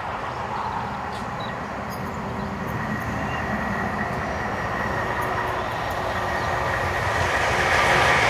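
Three-cylinder LNER Peppercorn A1 Pacific steam locomotive 60163 Tornado approaching tender-first with its train. Its running noise grows steadily louder, rising most toward the end.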